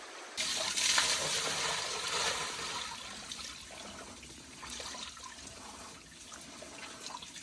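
Mountain stream water rushing and splashing over rocks, a steady hiss of running water. It jumps louder about half a second in, then gradually fades.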